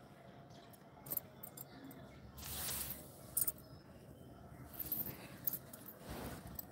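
Rustling and scattered clicks from a handheld phone being moved and turned close to its microphone, with two short rushes of noise.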